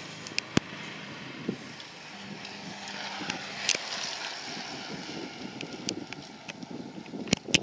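Steady rushing noise of wind on the microphone as racing bicycles pass along the road, with a few scattered sharp clicks.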